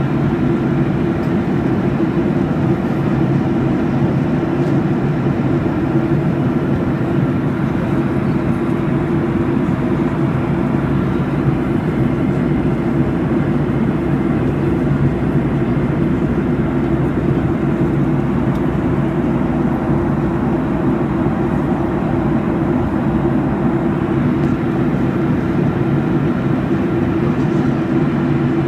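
Steady cabin noise of an airliner in flight: an even, deep rush of engine and airflow noise that holds unchanged.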